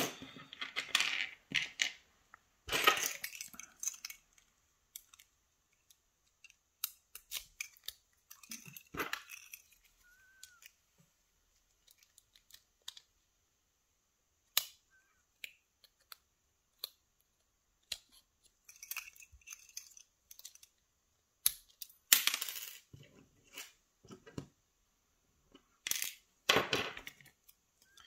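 Small metal parts of a pin-tumbler lock core clicking and clinking as the core is taken apart by hand, its brass plug pushed out with a follower rod. The light clicks are scattered throughout, with a few louder rattles among them.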